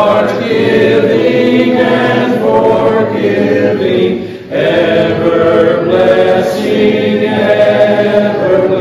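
Congregation singing a hymn together, led by a man's voice at the pulpit microphone, in long held phrases with a short breath break about four and a half seconds in.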